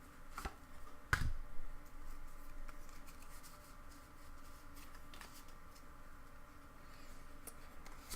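Pokémon trading cards and a booster pack being handled by hand: scattered light clicks and taps, with one louder knock about a second in.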